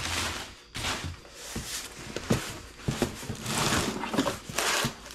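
Brown kraft packing paper rustling and crumpling as it is pulled out of a cardboard box, in several swells, with a few light knocks of cardboard being handled.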